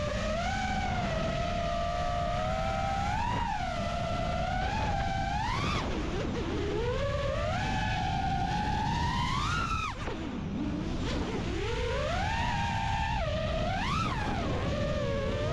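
FPV freestyle quadcopter's brushless motors and propellers whining, the pitch swooping up and falling back with the throttle several times, over a steady rush of wind noise. About ten seconds in the whine drops away briefly as the throttle is cut, then climbs again.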